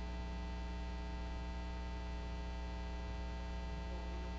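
Steady electrical mains hum with a stack of evenly spaced overtones, picked up through the lectern microphones and sound system.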